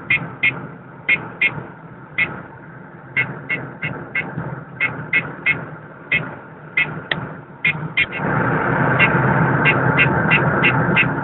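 Whistler XTR-150 radar detector sounding its K-band alert: short, irregularly spaced beeps, one to three a second, as it picks up a police car's constant-on radar. About eight seconds in, a louder steady rushing noise sets in under the beeps.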